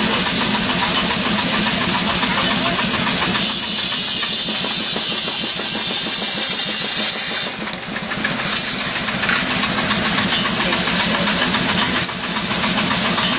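A sawmill running, its engine going steadily, with the saw cutting through a log: a loud hissing cut from about three seconds in until about seven and a half seconds, then a brief second bite a second later.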